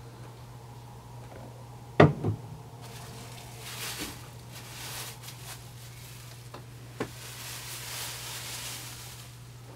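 A plastic water bottle set down on a wooden table with two knocks about two seconds in, then a thin plastic bag crinkling and rustling in the hands, over a steady low hum.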